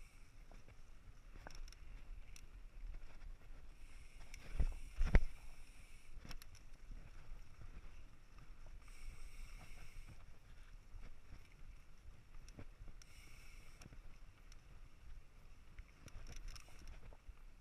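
Mountain bike riding over a dirt trail: steady rolling rumble with wind on the microphone, two sharp thumps about four and a half to five seconds in as the bike hits bumps, and a higher buzz that comes and goes a few times.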